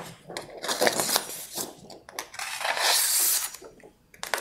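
A sheet of paper rustling and crinkling as a kitchen knife's edge is drawn against it, with a longer scraping rustle about halfway through: the paper test on a completely blunt blade that snags and rips rather than slicing cleanly.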